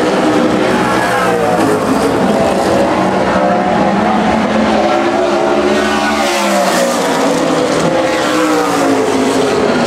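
Super late model stock car's V8 engine running at racing speed around an oval, its note rising and falling in pitch, with one broad climb peaking about six seconds in and then dropping away.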